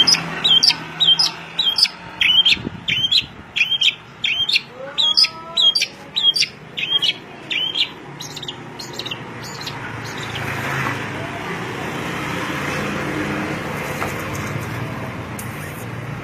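A songbird chirping rapidly, about two to three sharp high chirps a second, which stop about halfway through. A steady background noise follows.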